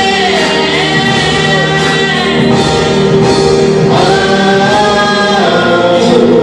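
Small mixed vocal group of young men and women singing in harmony into handheld microphones, amplified through a PA, with long held notes that slide between pitches.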